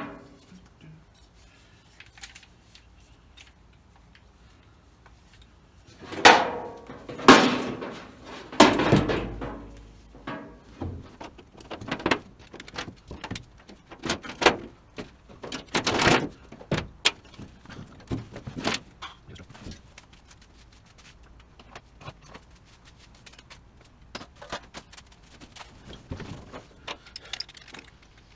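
Tools and metal parts being handled: quiet at first, then a string of loud knocks and clattering for about fourteen seconds, followed by fainter scattered bumps.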